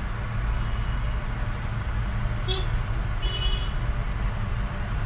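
Steady low background rumble, with two short sharp clicks around the middle.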